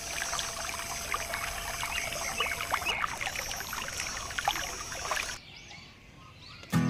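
Water trickling and splashing in small, irregular drops, stopping about five seconds in.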